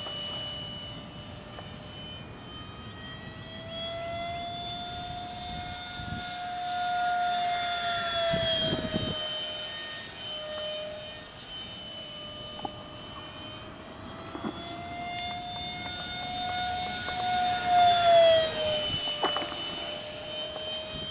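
Electric ducted fan of an F-5E model jet, a Wicked 4800 motor driving the stock fan on a 3S lipo, whining steadily in flight. It makes two passes, the pitch climbing as it comes in and dropping sharply as it goes by, the second pass the loudest.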